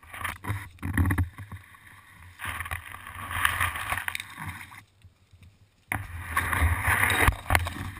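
Hiking boots crunching through dry leaf litter and brushing past dwarf palmetto fronds, step after step, with a short pause about five seconds in.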